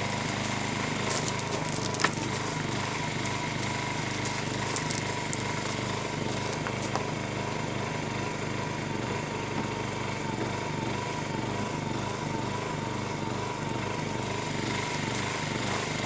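Ryobi inverter generator running steadily at an even pitch, with a few light clicks from the power cord and plug being handled.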